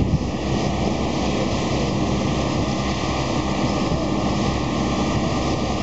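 Steady low running of the engines and propellers that drive Curaçao's floating pontoon bridge (the Queen Emma Bridge) as it swings back into place across the harbour channel.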